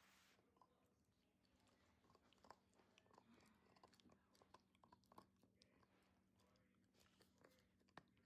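Australian Cattle Dog gnawing on a chew: faint, irregular clicks of its teeth working the chew, a few a second, over a faint steady hum.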